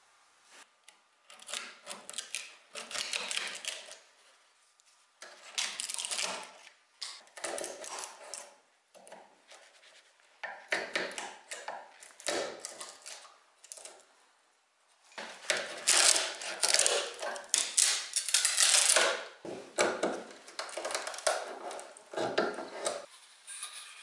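Steel chisel picking and prying damaged old plywood and loose splinters off the corner of an antique wooden vanity: bursts of wood cracking, splintering and scraping, separated by short pauses, heaviest in the last third.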